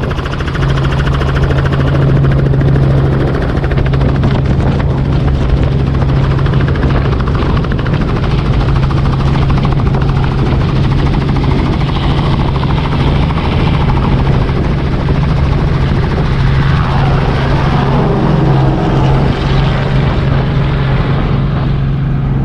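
Robinson R44 helicopter's two-blade main rotor and piston engine at takeoff power as it lifts off and climbs away: a loud, steady low drone with rotor noise over it.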